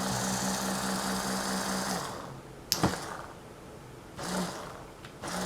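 Saab 9000 Mark IV ABS pump's electric motor running on bench power with a steady hum and rattle, cut off abruptly about two seconds in, followed by a sharp click. It runs rough: the owner suspects the socket slipped while a new bearing was pressed in.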